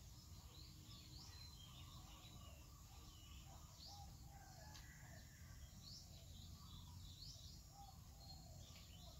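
Faint birds chirping in many short, quick calls, scattered throughout, over a low steady background rumble.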